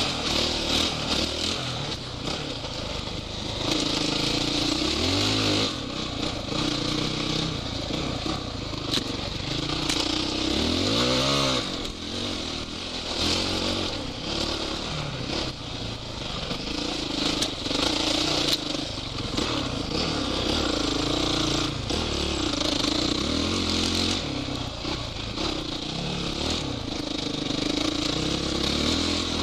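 Off-road motorcycle engine revving up and down again and again as the rider accelerates, shifts and backs off over a sandy forest track, heard from a goggle-mounted camera, with a steady rushing hiss and scattered clatter.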